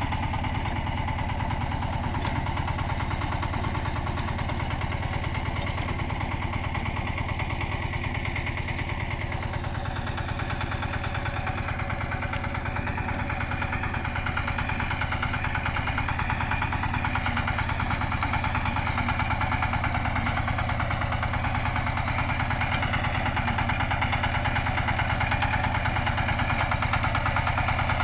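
Power tiller (two-wheel walking tractor) with its single-cylinder diesel engine running steadily as it pulls a loaded wooden trailer cart, getting a little louder over the last several seconds as it comes closer.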